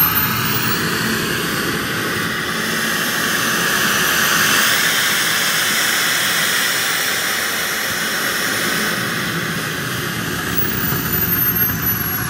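KingTech K60 model jet turbine running on the ground: a steady rush of exhaust noise with a high whine that climbs in pitch over the first seconds and drops back down near the end.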